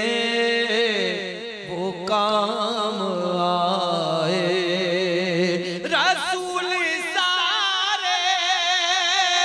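A man singing a naat with long, drawn-out melismatic lines, his pitch wavering on the held notes. A new, higher phrase begins just before six seconds in.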